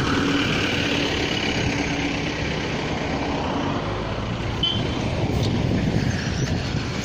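A bus drives past close by, its engine and tyres loud at first, then fading as it pulls away, leaving steady road traffic noise.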